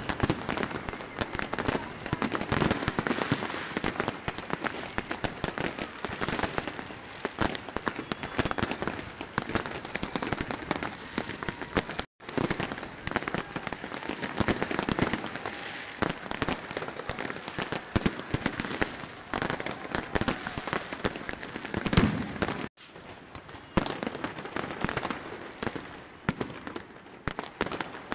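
Many consumer fireworks and firecrackers going off at once: a dense, irregular barrage of cracks, pops and bangs from rockets bursting overhead and ground fireworks. The sound drops out for a split second twice, about 12 and 23 seconds in.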